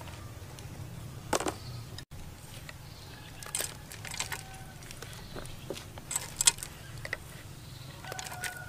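Scattered light clinks and clicks of kitchen utensils, loudest a little over a second in and again about six seconds in, over a steady low hum.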